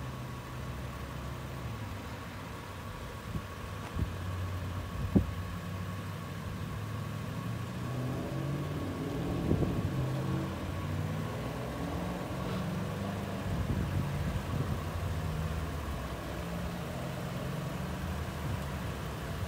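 Toyota 4Runner's 4.0-litre V6 idling steadily, with a few sharp clicks about four to five seconds in.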